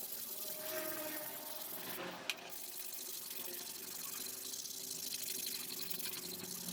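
Water running steadily, as from a tap, with one sharp click a little over two seconds in.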